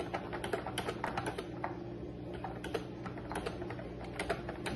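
Typing on a Milk Tea wireless keyboard with round, typewriter-style floating keycaps: a quick, irregular run of key clicks.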